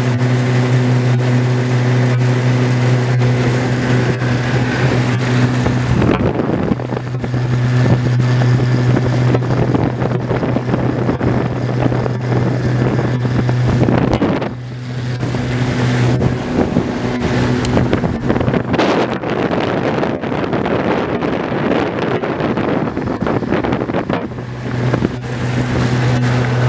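Small outboard motor running at a steady cruising speed, a constant hum, with wind on the microphone and water rushing past. The hum fades for a moment about six seconds in and again just past halfway, and it is weaker for a stretch later on.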